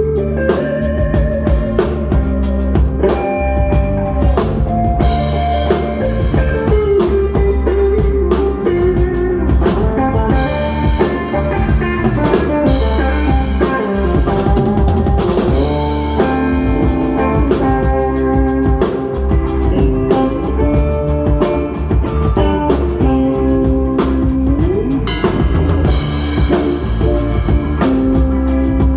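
Live rock band playing an instrumental passage: drum kit keeping a steady beat, bass guitar underneath, and a lead guitar line with bent, gliding notes.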